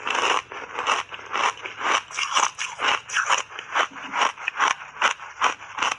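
Close-miked chewing of a mouthful of matcha-powdered ice chips: steady, rapid crunching, about three to four crunches a second.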